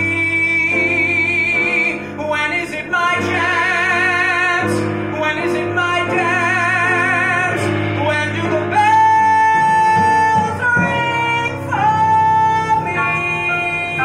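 Male vocalist singing long held notes with a wide vibrato in a jazz ballad, backed by guitar.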